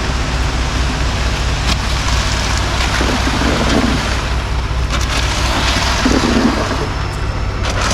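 Heavy diesel truck engine running steadily at the concrete pour, under a rushing noise, with a few short knocks.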